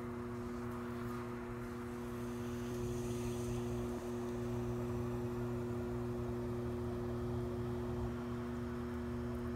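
Electric potter's wheel running, its motor giving a steady pitched hum while a clay pot is thrown on it.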